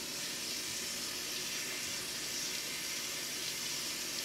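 Bathroom sink tap running in a steady stream of water into the basin.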